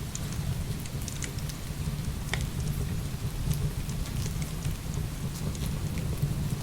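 Heavy rain pouring steadily with a deep low rumble underneath, mixed with scattered sharp crackles and pops of burning firewood.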